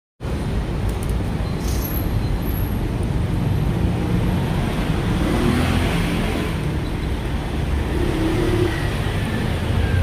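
Road traffic noise: a steady low rumble of passing motor vehicles.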